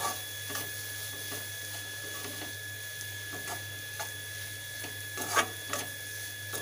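Scrambled egg and onion being stirred and scraped in a metal kadai, in irregular strokes, the loudest about five and a half seconds in.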